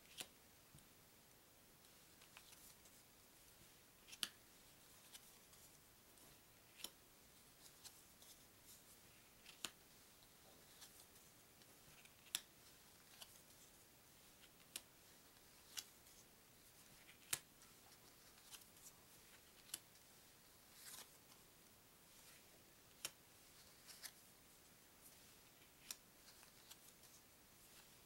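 Faint, crisp snaps and taps of stiff paper trivia cards being lifted one at a time off a stack and laid down, a click every second or so, with a short rustle of card near the middle.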